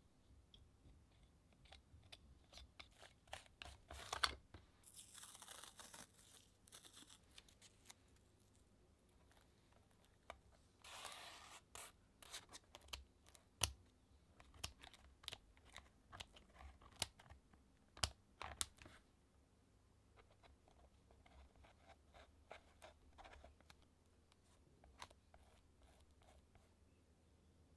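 Close-up handwork sounds on paper and journal pages: scattered taps and clicks, a palette knife scraping, and scissors cutting paper, with two longer rasping passages about five and eleven seconds in.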